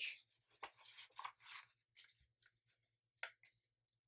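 Faint rustling and sliding of a sheet of heavy colored paper as it is folded diagonally by hand, with one short crisp crinkle a little after three seconds.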